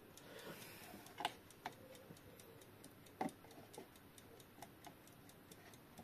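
Faint, quick, even ticking of a Junghans wall clock's balance-wheel movement as it runs, with a few louder light knocks as the movement is handled and set onto the dial's mounting feet.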